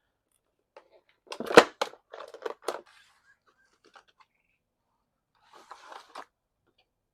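Packaging of a boxed door lock being opened by hand: a burst of tearing and crackling about a second and a half in, with one sharp snap the loudest, then a brief rustle near the end.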